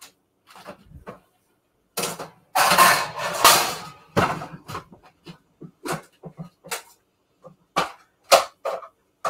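Kitchen handling sounds: a series of short knocks and clicks of cookware and utensils, with a louder, longer noisy clatter about two to four seconds in.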